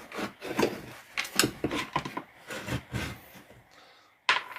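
Irregular knocks, scrapes and clicks of a cordless angle grinder's plastic housing and parts being handled and fitted back together, with a sharp click near the end. The motor is not running.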